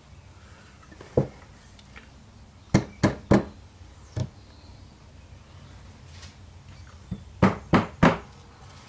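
Mallet blows on a homemade drum carder, tapping one drum back into alignment with its mounting bolts loosened. A single knock, then a quick run of three, another single knock, and near the end another quick run of three.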